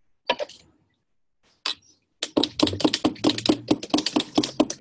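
A metal spoon clinking against a ceramic mug as coffee is stirred: a couple of single clicks, then from about two seconds in a fast, continuous run of light clinks.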